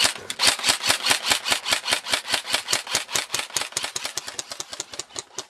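Airsoft rifle firing a long continuous burst of rapid shots, about ten a second.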